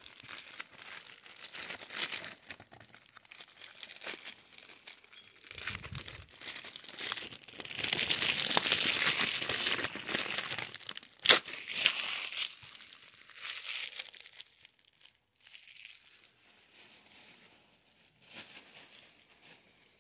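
Plastic shrink wrap being torn and peeled off a DVD case, crinkling and crackling, loudest through the middle stretch, with one sharp click about eleven seconds in, then dying down to faint rustles.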